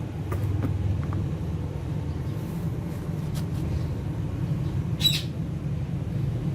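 One short, shrill parrot squawk about five seconds in, over a steady low rumble, with a few faint clicks in the first second.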